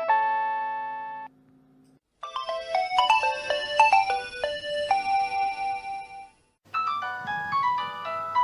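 Nokia mobile phone ringtone melodies played back to back. One version ends about a second in, a second plays for about four seconds after a short gap, and a third starts after another brief pause near the end.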